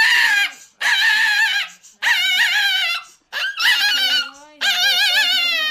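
Small dog crying out in a run of drawn-out, high-pitched, wavering screams, about one a second, each roughly a second long with brief breaks between them.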